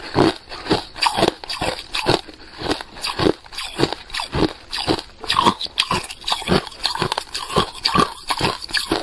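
Biting and chewing red-coloured ice frozen in a plastic ice-cube bag: a quick run of loud, sharp crunches, about two or three a second.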